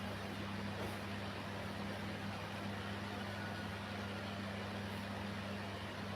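Steady low machine hum with an even hiss behind it, unchanging throughout, with no snoring or breathing rhythm.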